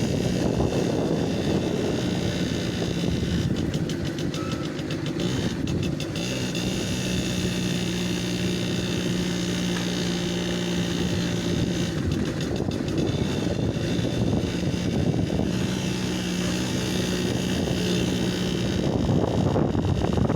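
TVS 50 moped engine running while being ridden, a steady engine note over road and wind noise, which fades briefly a couple of times.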